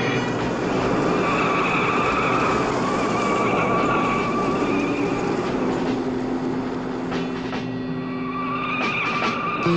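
Car engine running hard at speed, with tyres squealing and skidding as the car takes turns in a chase.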